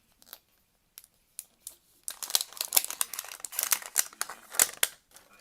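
Plastic packaging of a Mini Brands miniature capsule being unwrapped by hand: a few single clicks, then a dense run of crinkling from about two seconds in until near the end.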